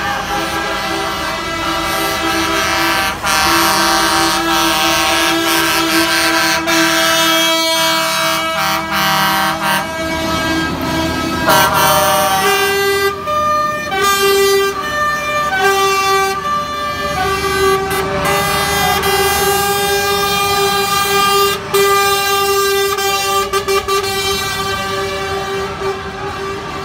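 Lorry air horns sounding in long held blasts, often several together in chords, as convoy trucks drive past, over the low running of their diesel engines.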